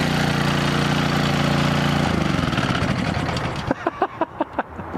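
Small Honda 190 overhead-cam engine on a pressure washer running steadily just after starting, then shut off about two seconds in, its pitch falling as it winds down and stops.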